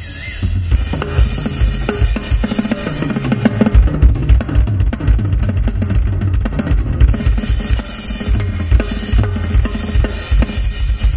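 Rock drum kit played solo live: fills across the drums with cymbals ringing, then rapid, steady bass drum strokes starting about four seconds in.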